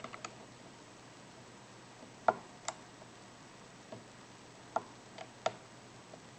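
Sparse, irregular small metallic clicks from a hook pick working the pins of a six-pin tumbler padlock during single-pin picking, the loudest a little over two seconds in.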